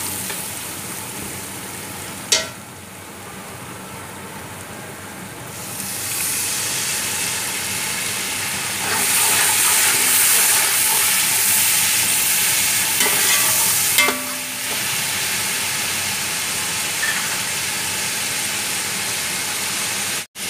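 Onion-and-spice masala sizzling in hot ghee in an aluminium pot while a metal slotted spoon stirs it, with a couple of sharp knocks of the spoon on the pot. The sizzle grows louder about six seconds in and louder again around nine seconds.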